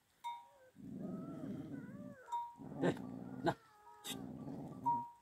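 Tibetan mastiff growling in low rumbles, in three bouts, with a few sharp clicks between them.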